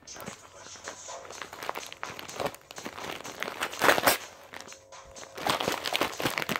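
Handling noise close to the microphone: irregular rustling, crinkling and knocking, loudest about four seconds in.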